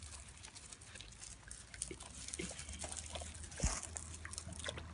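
Puppy splashing and lapping at water in a plastic tub, with scattered small wet clicks. There is a single low thump about three and a half seconds in.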